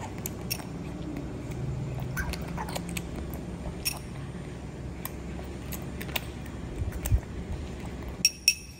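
A metal spoon clinks lightly against a ceramic bowl a few times as food is scooped, with a close pair of clinks near the end, while a baby monkey chews softly.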